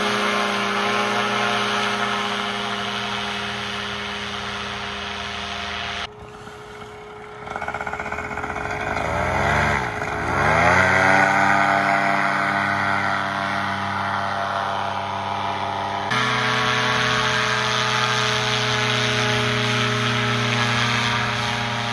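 Powered paraglider (paramotor) engines and propellers running steadily at full power on the takeoff run, in a few separate shots. About ten seconds in, one engine's note drops sharply and climbs back.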